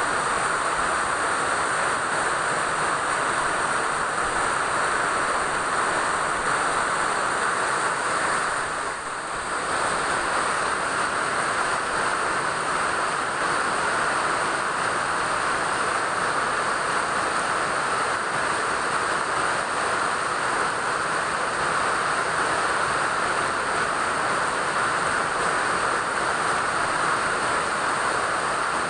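Steady rain falling, an even hiss, briefly softer about nine seconds in.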